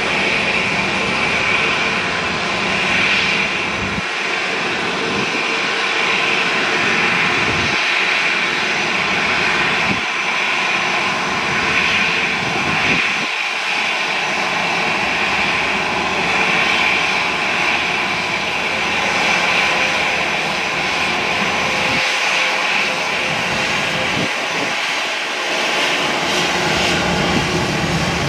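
Jet airliner engines running loud and steady: an even rush with a constant high whine.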